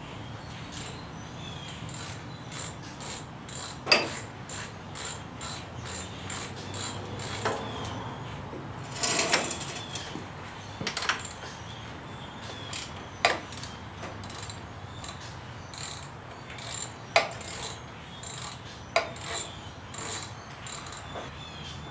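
Hand socket ratchet clicking in long runs, about three clicks a second, as bolts are backed out, with several louder knocks of the tool against metal.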